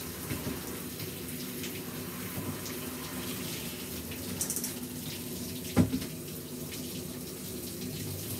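Water running from a handheld shower sprayer, rinsing a Pomeranian's coat in a plastic tub. There is one sharp knock a little under six seconds in.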